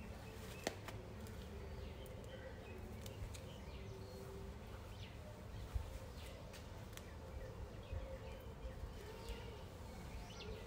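Faint room tone with scattered light clicks and rustles of hands working long hair and satin scrunchies, and a few faint bird-like chirps.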